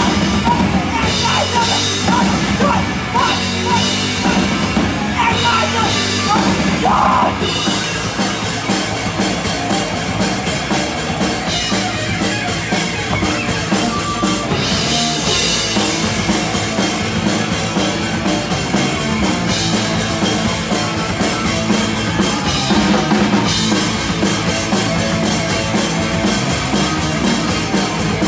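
Live punk rock band playing loud, with electric guitar, bass guitar and a drum kit going without a break.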